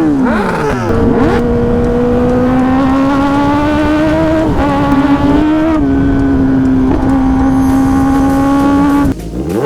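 Kawasaki Ninja ZX-10R inline-four engine through a loud aftermarket exhaust. It revs quickly up and down, then is held at high revs in one steady, loud note for about eight seconds with small rises in pitch. Near the end the revs drop, followed by another quick blip.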